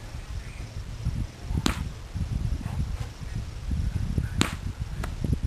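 Fireworks going off: two sharp bangs a little under three seconds apart, the second followed half a second later by a smaller crack, over a continuous low rumble.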